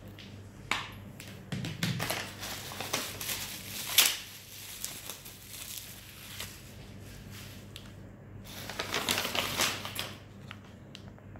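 Packaging crinkling and crackling as it is handled and opened, in two spells, with one sharp crack about four seconds in.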